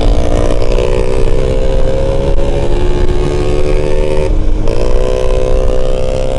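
Motorcycle engine pulling under throttle, its pitch climbing and then holding, dipping briefly about four seconds in before climbing again. Heavy wind rumble on the microphone.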